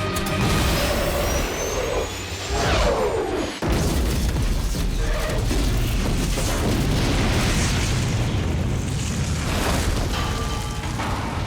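A film explosion: a gliding, whooshing whine, then a big blast about three and a half seconds in, followed by a long low rumble, under dramatic score.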